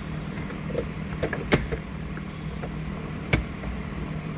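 Rubber shifter boot being worked up and off the shifter and its plate, with small handling noises and two sharp clicks, one about a second and a half in and one near the end, over a steady low hum.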